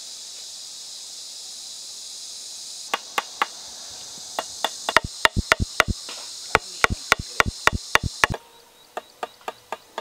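Wooden knife handle tapping on a green tree branch, an irregular series of sharp knocks about three a second, to loosen the bark so it can be slipped off whole. A steady high hiss sits under the first part and stops abruptly around eight seconds in, after which a few quieter taps follow.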